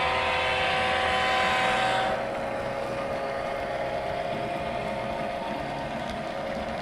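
Model diesel locomotive's sound decoder playing a running diesel engine, a steady drone with several held tones. About two seconds in it drops a little in loudness and settles to a different tone.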